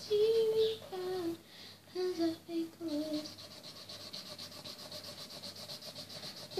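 A girl humming a few notes during the first three seconds, while a felt-tip marker rubs back and forth on paper in quick, even strokes; after that the marker strokes go on alone.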